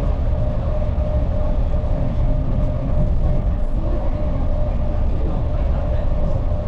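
Inside a moving passenger train: the steady rumble of the carriage running on the rails, with a steady whining tone running through it.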